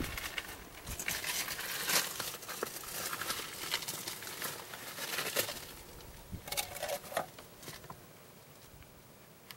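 Irregular rustling and crackling close to the microphone, dying down about eight seconds in.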